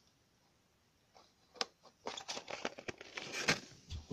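Fidget spinners and their plastic packaging being handled and set down on the floor: a single click, then from about two seconds in a dense run of crinkling, rustling and clicking.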